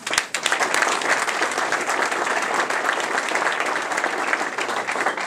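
A roomful of people applauding, a dense clatter of many hands clapping that starts abruptly and keeps up steadily.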